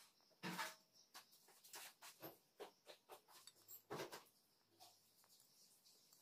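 Faint scrapes and light taps of a metal teaspoon scooping spice powder off a patterned plate and sprinkling it over diced chicken in a metal bowl: a string of short clicks, the loudest about half a second in and about four seconds in.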